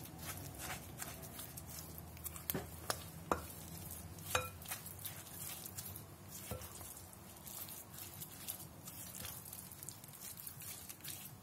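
A spatula stirring a thick mixture of tomato paste, pepper paste, oil and breadcrumbs in a glass bowl: soft, wet scraping throughout, with a few light clicks in the first seven seconds.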